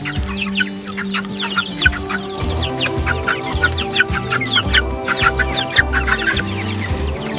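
A flock of young broiler chickens peeping continuously, many quick chirps that fall in pitch, over background music.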